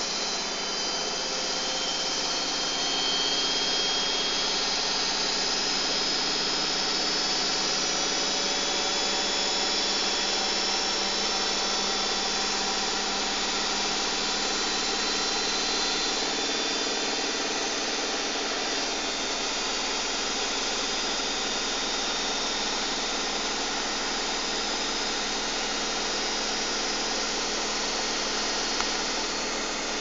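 Miele Grandiosa T washing machine in its final spin at 1500 rpm, loaded with towels and a bath mat: a steady high-speed whir of drum and motor with a faint whine.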